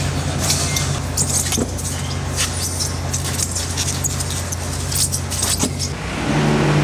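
Steady low machine hum with frequent irregular clatter and knocks as styrofoam fish boxes are slid along a conveyor and set down. Near the end the hum changes to a higher, steadier drone.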